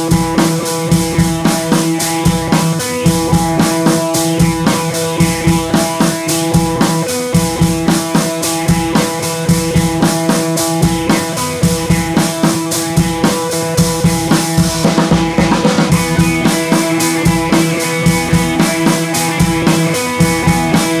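Background music with a steady drum-kit beat under sustained pitched notes.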